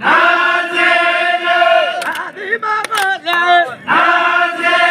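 Voices singing a Balochi chogan chant in chorus, in long held notes that slide in pitch around the middle. A few sharp clicks sound about two to three seconds in.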